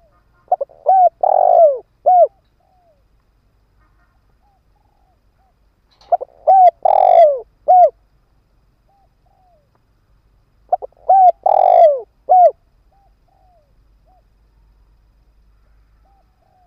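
Spotted dove cooing: three phrases about five seconds apart, each a few short coos followed by a longer one, with faint soft coos in between. It is the call of a decoy dove, used to provoke and lure wild doves.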